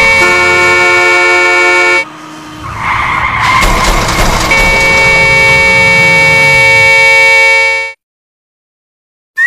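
Several vehicle horns blaring together as one held chord. About two seconds in they break off into road and engine noise, then blare again and cut off abruptly into silence about eight seconds in.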